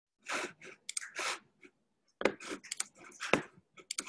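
Faint, irregular clicks and short rustling noises picked up close to a computer microphone, with two sharper knocks about two and three and a half seconds in.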